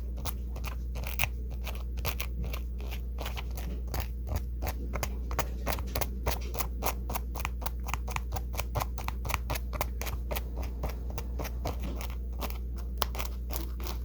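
Seam ripper picking through the hooks of a Velcro strip clogged with lint and dirt, making an irregular run of small crackling clicks, several a second.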